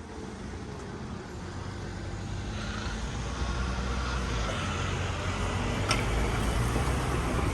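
Road vehicles moving off across a level crossing once the barriers have lifted: engine and tyre noise grows steadily louder.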